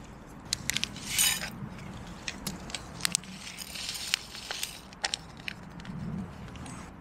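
Small metal clinks and a crinkling rustle from a steel camping mug and cookware being handled while coffee is prepared in the mug. Scattered sharp clicks come through, with a short rustle about a second in.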